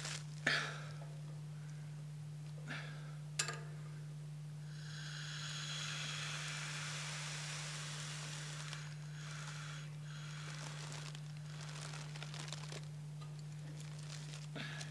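Stored wood gas hissing out of a tank valve into a plastic bag: a hiss that starts about four seconds in, is strongest for about four seconds, then fades. A few crinkles of the plastic come before it, over a steady low hum.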